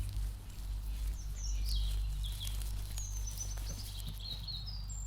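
Small birds calling over a steady low outdoor rumble: several short high chirps and sliding notes, with one longer thin whistle about three seconds in.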